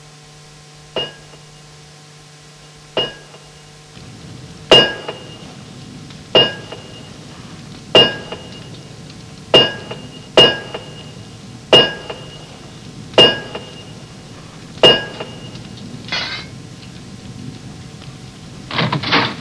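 Blacksmith's hammer striking a metal anvil about a dozen times, one to two seconds apart. Each blow rings with a clear metallic tone. The blows get louder about four seconds in, and a louder double hit comes near the end.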